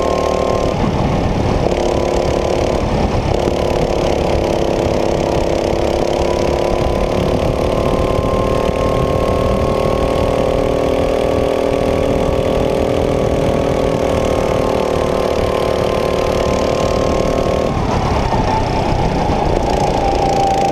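Rental go-kart engine running at speed, heard on board: a steady note that climbs slowly along the straight, dips briefly twice in the first few seconds, and drops sharply near the end as the throttle lifts for a corner. A low noisy rumble runs underneath.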